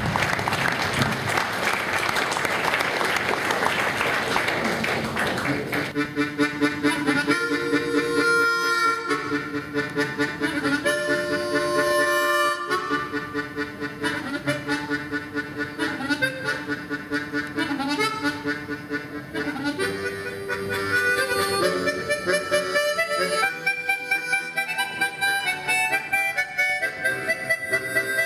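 Audience applause for about six seconds, then a harmonica quartet starts playing: several harmonicas sounding sustained chords under a moving melody line.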